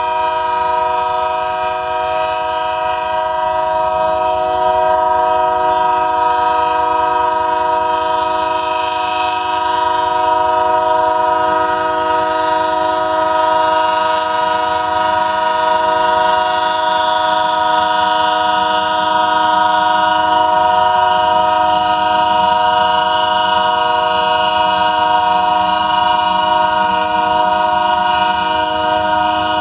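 Train horn stuck on, sounding one loud, steady, unbroken chord of several notes.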